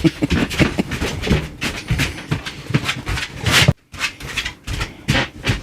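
Excited dog stirring at the offer of a walk: panting and moving about, with quick irregular scuffs and knocks and a few short pitched whimpers. There is a brief dropout about two thirds of the way in.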